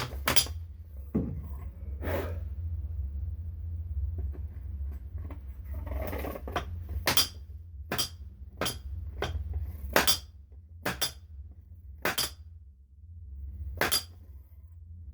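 A length of PVC pipe slid over a motorcycle fork tube being knocked down against the circular spacer to seat it in the fork: about ten sharp clinking taps at uneven intervals, a few of them close together.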